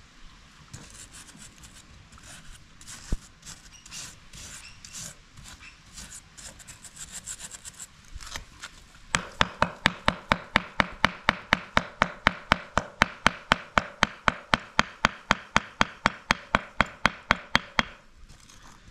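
Stiff hand brush scrubbing sand and residue off the fins of a freshly cast aluminium motorcycle cylinder head: irregular scratching at first, then from about nine seconds in a fast, even run of brush strokes, about four or five a second, that stops shortly before the end.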